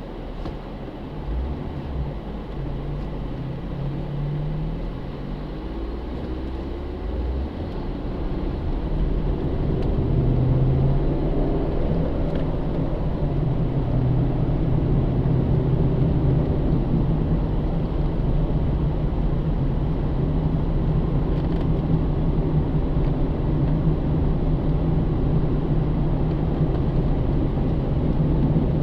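2009 Pontiac G8 GT's 6.0-litre V8 heard from inside the cabin with tyre and road noise. About a quarter of the way in, the engine note rises in pitch and gets louder as the car accelerates, then holds a steady drone.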